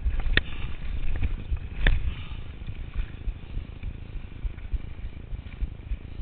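Turner DHR downhill mountain bike rattling down a dirt singletrack over a low wind rumble on the chest-mounted microphone. Two sharp knocks from the bike hitting bumps come about half a second and two seconds in, and then the ride runs smoother.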